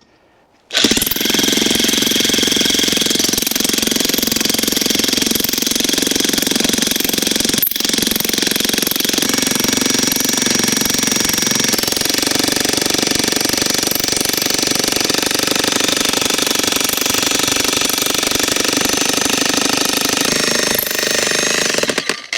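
Jackhammer hammering steadily into a firewood round to split it, a continuous rapid pounding that starts about a second in, falters briefly about eight seconds in, and stops just before the end.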